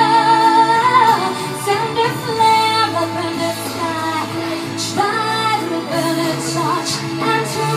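A woman singing a slow song into a handheld microphone over instrumental accompaniment, holding a long wavering note with vibrato about a second in.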